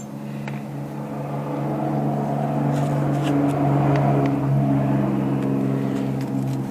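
Power drill running steadily for several seconds, turning a fastener deep inside a server rack through a long bit extension. Its motor hum swells toward the middle and eases a little near the end.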